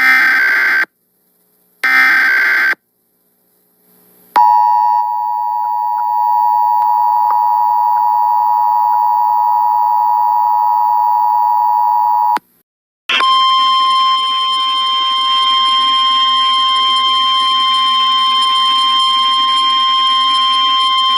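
Emergency Alert System alert audio. First come two short, buzzy digital data bursts of the SAME header. After a pause comes about eight seconds of the steady two-tone attention signal. After a brief break, a second steady tone at a single, slightly higher pitch runs for about eight seconds.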